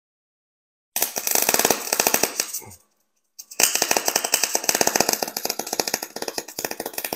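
Electric arc welding: the arc crackles and spits in two runs, about two seconds and then about four seconds, with a short break between.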